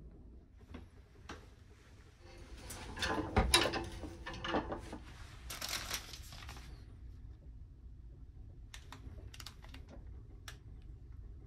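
Crinkling of plastic-wrapped towels being handled in a wicker basket, loudest a few seconds in, followed by a few sparse clicks. A low steady hum runs underneath.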